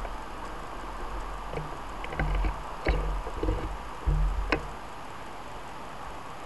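Steady street traffic noise at an intersection, with a few low bumps and clicks on the bike-mounted camera between about two and five seconds in.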